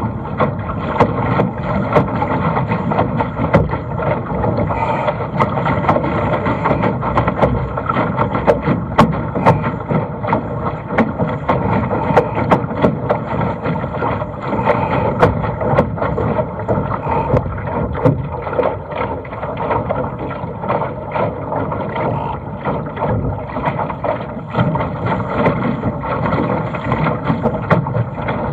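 Water rushing and splashing along the hull of a Laser dinghy sailing fast through chop, with frequent sharp ticks of spray and slaps against the boat.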